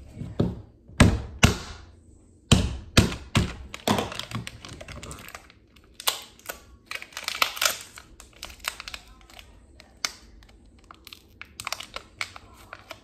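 Plastic packaging on a slime container being handled and torn open by hand: a run of sharp crackles, taps and knocks, loudest in the first few seconds.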